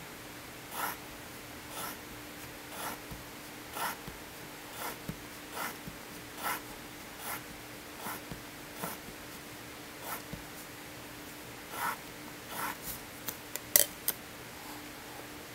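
Pencil lead scratching short strokes along the edge of a wooden ruler on paper as lines are ruled, about one stroke a second. Near the end come a few sharp clicks, the loudest sounds.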